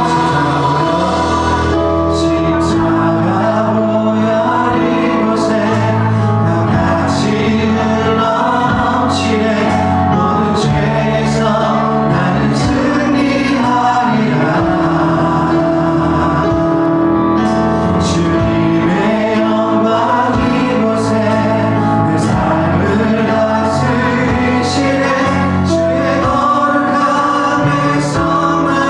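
Church worship band and group of singers performing a gospel praise song, with drums and cymbal hits keeping a steady beat.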